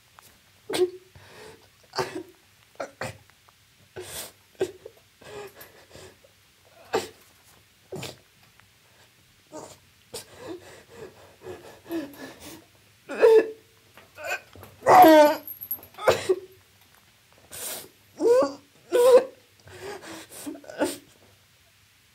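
A person sobbing: irregular bursts of gasping breaths and shaky, wavering cries, the loudest cry about fifteen seconds in.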